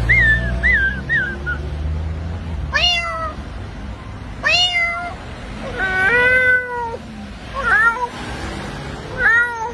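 A cat meowing about five times, each meow bending up then falling in pitch, the middle one the longest, with a few short chirping calls at the start.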